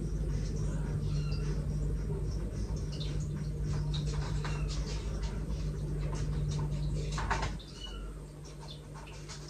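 A cat giving a few short, high chirping meows over a steady low household hum, with scattered light clicks and rustles.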